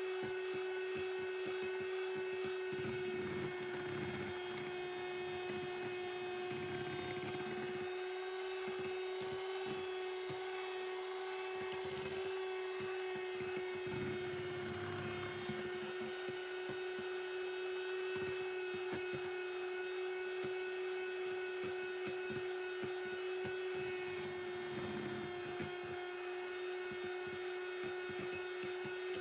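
Electric hand mixer running steadily at one speed, beating egg whites into meringue, with the beaters churning unevenly in the bowl.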